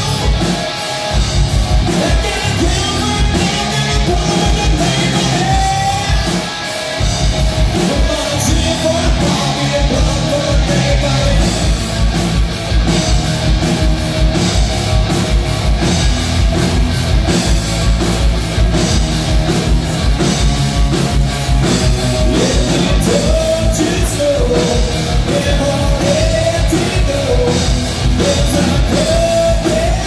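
Live rock band playing: electric guitar, bass guitar and drum kit, with a man singing into the microphone.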